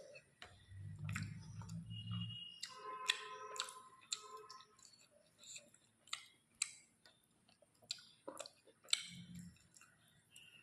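Close-up chewing and wet mouth sounds of someone eating rice with chicken curry: soft, squishy chews with scattered smacks and clicks, and a low murmur twice.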